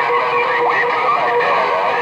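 CB radio receiver audio from a crowded channel: a steady whistle tone under warbling, overlapping transmissions of garbled voices.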